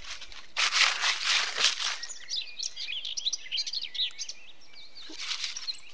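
Dry leaf litter rustling, a longer burst about half a second in and a shorter one near the end, against small birds chirping.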